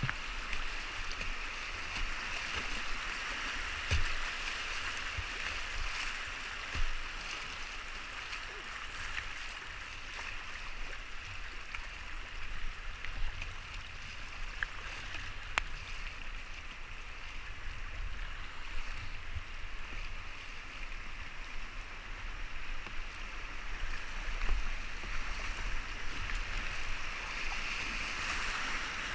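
Steady rushing of river rapids heard from a kayak on the water, with a few short paddle splashes and low bumps on top.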